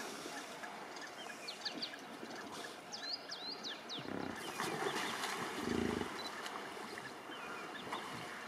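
A hippopotamus calls with a low, pulsing grunt about four seconds in, lasting some two seconds, the loudest sound here. Small birds chirp earlier, over a steady outdoor background.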